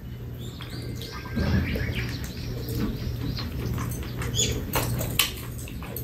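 Birds chirping, with a few sharp clicks of metal chopsticks and spoons against bowls.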